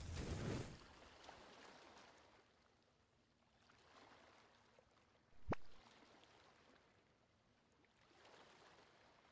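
Soft whoosh sound effects for on-screen transitions, one right at the start and a fainter one near the end, with a single sharp click about halfway through; otherwise near silence.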